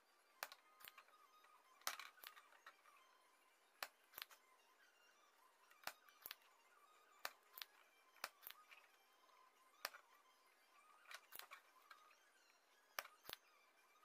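Spring-loaded desoldering pump (solder sucker) snapping as its plunger is cocked and released, lifting molten solder from an IC's pins. The sharp clicks come every second or two, mostly in pairs.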